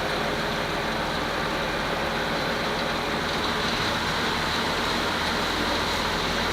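Ferry's diesel engine running steadily under way as the boat leaves port, a constant low drone with a rushing hiss over it.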